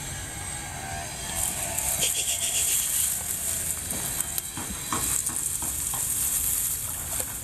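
Wet vines and water plants being pulled and shifted off a submerged wire-mesh fish trap: rustling and light knocks, with water dripping and stirring. A steady high hiss comes in about a second and a half in and carries on.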